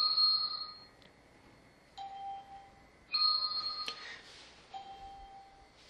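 Electronic beeps from the Flexijet 3D laser measuring system as it takes points: a high two-note tone about a second long, then about two seconds later a shorter, lower beep, and the pair repeats. The high tones come as each new measured point appears.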